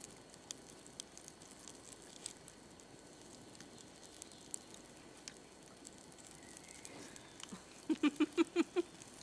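A small campfire crackling faintly with scattered clicks. Near the end, a woman gives a short run of quick giggles.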